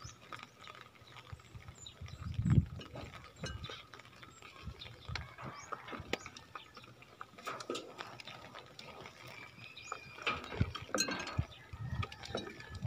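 Hands scooping and packing loose potting soil around seedlings in a tire planter: soft rustles and scattered small knocks, the loudest a dull thump about two and a half seconds in.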